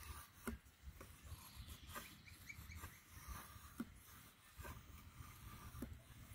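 Near silence with a few faint, light clicks of a steel knife blade touching and being set against a ferrocerium rod, without a full strike.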